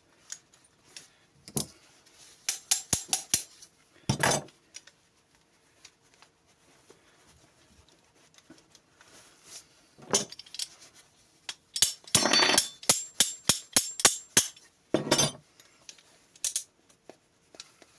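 Metal clicks and clinks of a tool prying a tight-fitting retaining ring off the ratchet mechanism of an INTU-20 steel-strap tensioner. They come in irregular clusters with quiet gaps, thickest about three seconds in and again from about twelve to fifteen seconds.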